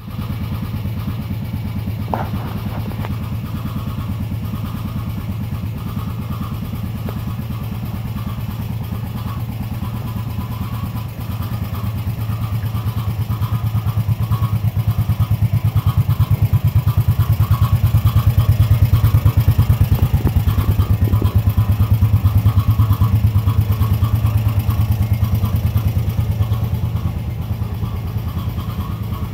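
Honda TRX500 ATV's single-cylinder four-stroke engine idling steadily with an even pulsing beat, growing somewhat louder about halfway through.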